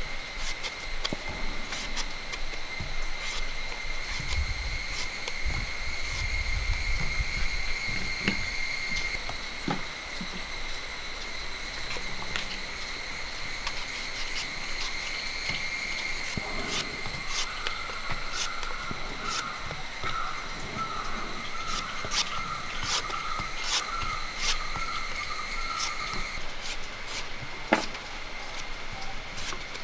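A large knife slicing firm raw green mango into long strips by hand, a run of short sharp cuts and clicks. Behind it is a steady high-pitched drone that stops near the end.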